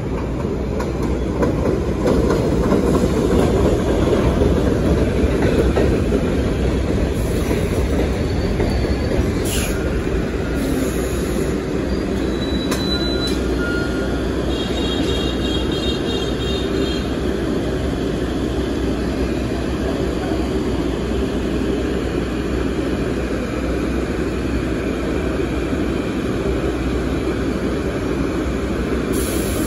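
R62A subway train pulling into an elevated station and braking to a stop, its wheels and motors rumbling on the steel structure, with faint high squeals from the wheels and brakes partway through. A steady rumbling hum carries on while the train stands at the platform.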